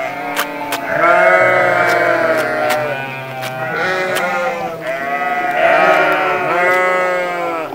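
Sheep bleating in long, wavering calls, one run of bleats about a second in and another about five seconds in, over background music with a light beat.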